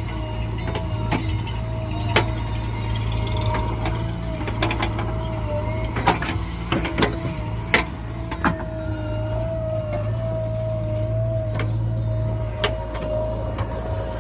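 JCB excavator's diesel engine running steadily with a wavering whine over it, broken by several sharp metallic knocks, most of them in the middle of the stretch.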